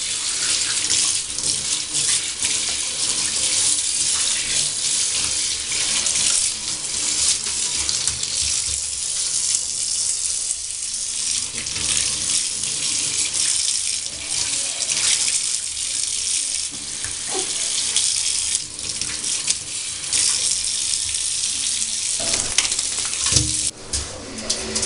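Handheld shower spraying water into a bathtub and over a wet puppy, a steady hiss that gets quieter near the end.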